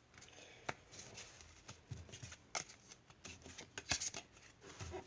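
Pokémon trading cards being handled and slid past one another: a string of faint, irregular clicks and soft rustles.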